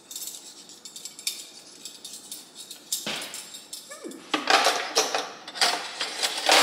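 Metal cutlery clinking and clattering as forks are handled and set into a drawer organizer: light scattered clicks at first, then busier, louder clatter from about halfway through.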